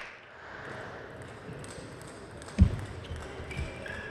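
Table tennis rally: a celluloid ball knocking on bats and the table in a few sharp ticks, with one loud low thud about two and a half seconds in.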